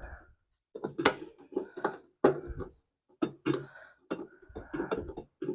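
Metal parts of a kerosene heater being handled and fitted back together: a string of irregular light clinks and knocks.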